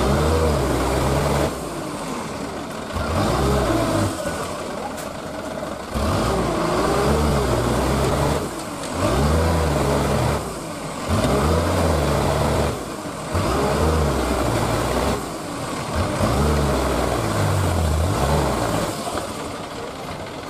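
Dump truck's diesel engine revving in repeated bursts of one to three seconds, each rising and falling in pitch, with idling between, as the truck works its sunken rear wheels up out of a mud hole; by the end it has pulled free.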